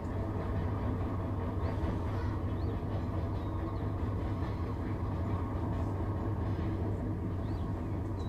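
Steady low rumble of background noise, unchanged throughout, with a few faint clicks.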